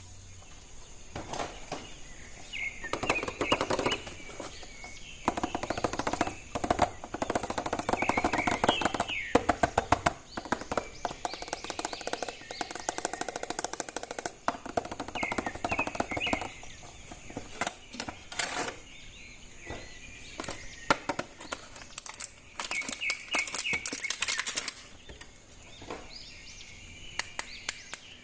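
Runs of rapid clicking and rattling from plastic toy action-figure parts being handled, coming and going in bursts, with short birdlike chirps in between.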